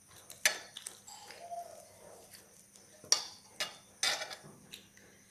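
A few sharp, short clicks and clinks, about four in all, from hands eating rice off ceramic plates, with gold rings and bangles tapping against the plates.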